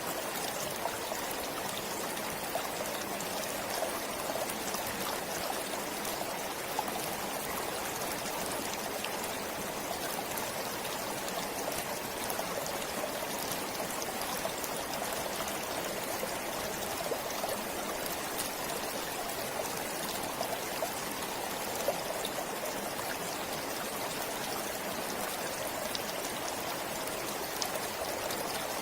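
Forest stream flowing steadily, a continuous rush of water with small sharp splashes here and there.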